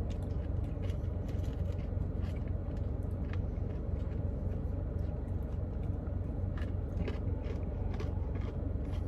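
A spoon scraping and digging into a cup of thick frozen custard, then chewing, heard as scattered small clicks and scrapes over a steady low rumble.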